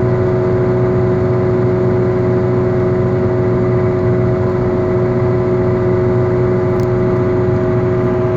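Bad wheel bearing growling while a car drives at steady speed: a loud, steady drone with two held tones over a low rumble. This is the final-phase sound of a failing bearing.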